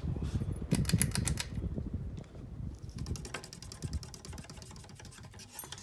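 Harbor Breeze Bellevue ceiling fan running, a steady low rumble of its motor and moving air, with rapid clicking at roughly ten ticks a second in a short run about a second in and again from about three seconds in.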